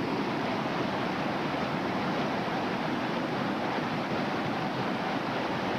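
Whitewater of a river rapid rushing steadily, an even roar of water with no breaks.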